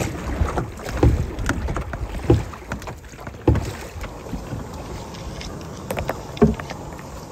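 Crew paddles pulling through the water of a large canoe in rhythm, a stroke roughly every second for the first few seconds, then fainter and sparser.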